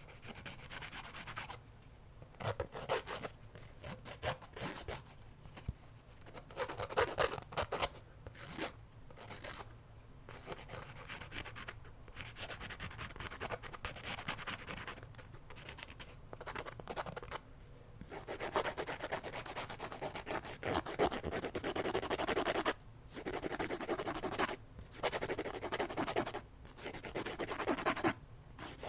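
Emery board filing fingernails: quick rasping back-and-forth strokes in runs broken by short pauses, faster and louder in the second half.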